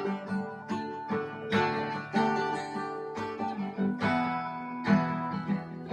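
Acoustic guitar strummed and picked in a steady rhythm, an instrumental passage between sung lines of a song.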